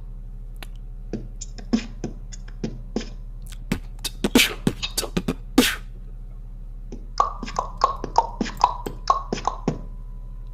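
Beatboxing: fast mouth-made kick, snare and hi-hat hits, then from about seven seconds in a quick run of short pitched notes over the beat. A steady low hum runs underneath.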